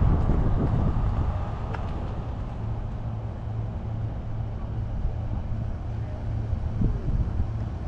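Vehicle running, a steady low engine hum with road rumble, getting a little quieter over the first few seconds and then holding steady.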